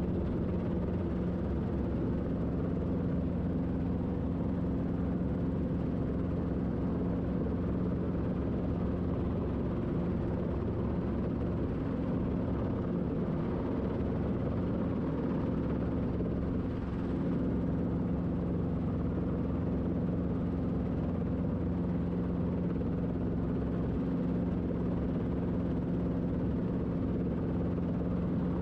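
Robinson R22 Beta II helicopter hovering, heard from inside the cockpit: a steady drone of the main rotor and its four-cylinder Lycoming piston engine, with a slight momentary dip about two-thirds of the way through.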